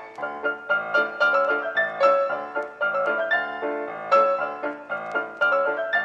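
Background piano music: a quick, even run of notes.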